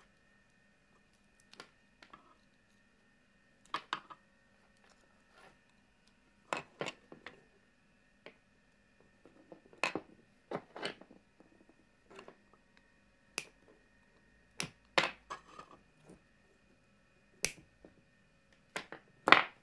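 Irregular sharp clicks and clacks of a mains charger's circuit board, power cable and plastic case being handled and set down on a workbench, about sixteen in all, the loudest near the end.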